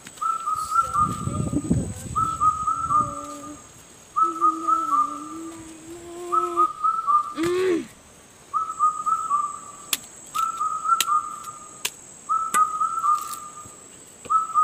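Whistling: the same short falling phrase repeated over and over, about once a second, with a brief break near the middle. A burst of rustling comes about a second in, and a few sharp clicks near the end.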